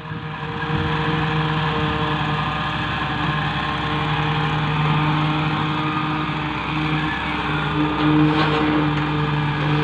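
Diesel engine of a tracked excavator running steadily as it swings its boom and raises a bucket of sand, a little louder about eight seconds in.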